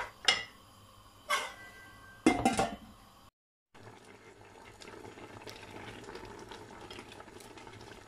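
A few knocks and clinks of a cooking pot, one ringing briefly, then a steady simmering hiss of chopped plums and water boiling in the pot.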